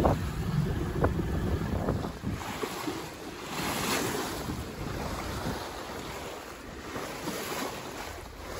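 Wind buffeting the microphone and the sea washing past a small sailboat under way, with a louder rush of water about four seconds in.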